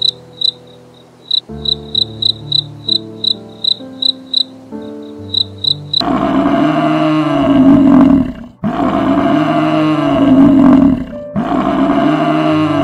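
An animal calling loudly three times, each long call rising and then falling in pitch, starting about six seconds in. Before that, background music plays with a high chirp repeating about twice a second.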